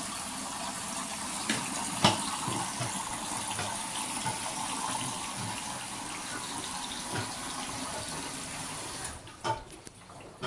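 Water running steadily, then stopping about nine seconds in, with one sharp knock about two seconds in.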